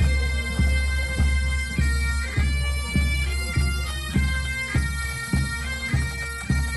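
Bagpipes playing a melody over a steady drone, with a drum beating a little under twice a second.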